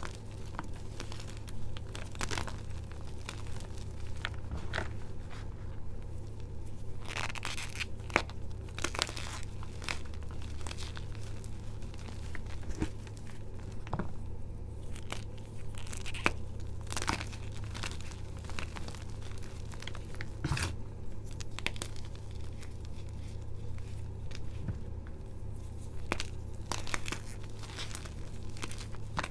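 Gym chalk blocks dusted with starch and powder being squeezed and crumbled by hand, giving soft, irregular crunches and crackles as the chunks break and the powder compresses. A steady low hum runs underneath.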